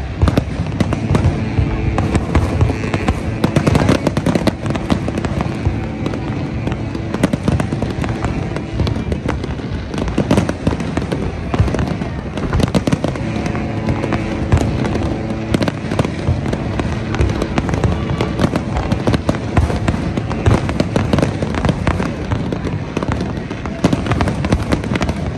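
Large fireworks display, with a dense, continual run of bangs and crackling as many shells burst at once. Music plays underneath.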